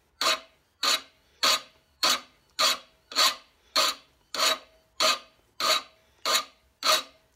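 Flat hand file rasping across the steel tip of an old flat-blade screwdriver to reshape its deformed tip: twelve even push strokes, a little under two a second, each with a faint metallic ring.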